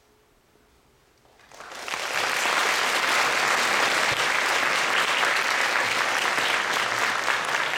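Audience applause after a moment of near silence: it breaks out about a second and a half in, swells within half a second and holds steady and loud.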